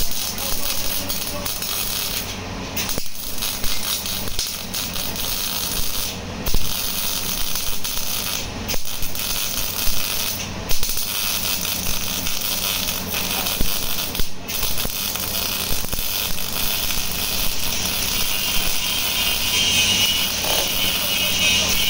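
MIG welding arc crackling steadily as a seam is laid on a steel chassis rail, with several brief breaks where the arc stops and restarts.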